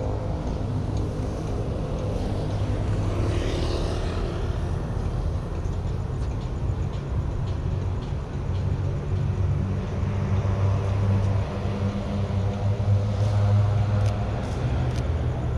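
A motor vehicle engine runs steadily nearby, a low rumble that swells from about ten seconds in. A few short clicks come near the end.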